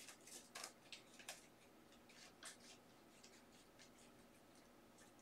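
Near silence, with a few faint light ticks and swishes in the first couple of seconds as Upper Deck hockey trading cards are flipped through a stack by hand.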